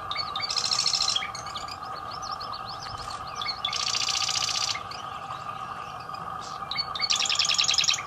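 A wren singing: three bursts of rapid rattling notes, each about a second long, with short chipping notes between them, over a steady background hum.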